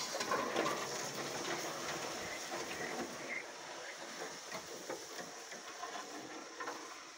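Reed stems and leaves rustling and crackling as someone pushes through a dense reed bed, a continuous scratchy rustle of many small clicks that slowly fades toward the end.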